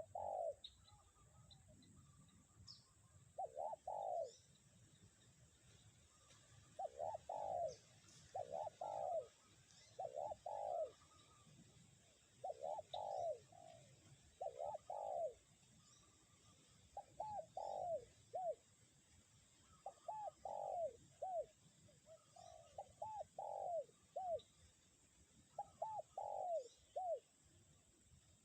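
Spotted dove (tekukur) cooing over and over in short phrases of two to four notes, a phrase every two to three seconds. Underneath runs a low wind rumble, with faint high chirps from small birds.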